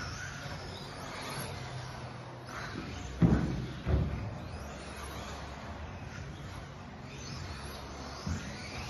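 Radio-controlled off-road car running on an indoor track, its electric motor whining faintly up and down in pitch. Two loud low thumps come a little over three seconds in and again half a second later, with a smaller thump near the end.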